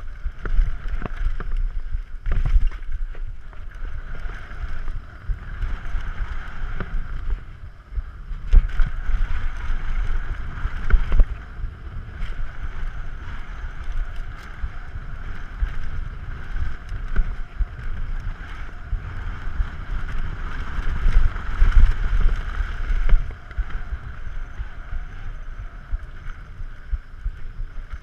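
Wind buffeting the microphone of a bike-mounted action camera as a Yeti SB6c mountain bike rides fast down a dirt trail, with tyre and trail rumble that swells and eases and a few sharp knocks from the bike over bumps and landings.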